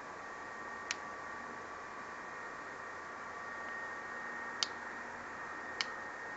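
Three sharp snaps of small dry spruce and fir twigs being broken by hand for a small wood fire, over a steady hiss.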